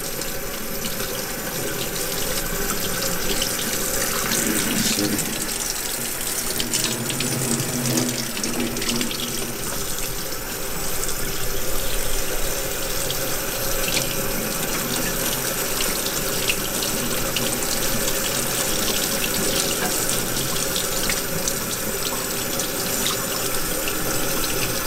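Tap water running steadily from a faucet and splashing over a waterproof winter glove held under the stream in a stainless steel sink.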